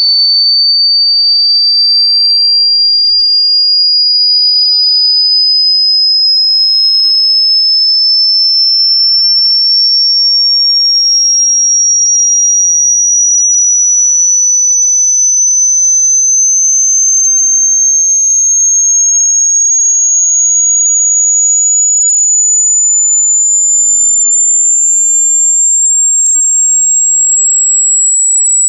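A single pure test tone from a hearing test, high-pitched and climbing slowly and steadily in pitch at constant loudness. It is a frequency sweep used to check how high a listener can still hear, as a measure of how much the ears have aged.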